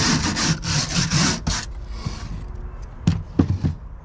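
A hand tool scraping and scrubbing propolis off the timber frame of a beehive's open mesh floor, in about five quick, rasping strokes, followed by a few light knocks of the wood near the end.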